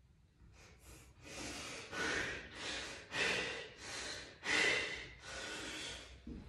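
Heavy, rapid breathing of a weightlifter bracing under a loaded barbell. About seven quick breaths in a row start about a second in.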